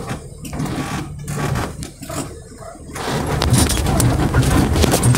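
Off-road 4x4 heard from inside the cabin on a rough gravel track: the engine runs low at first, then about three seconds in a loud, continuous rattle and rumble sets in as the vehicle jolts over the stones.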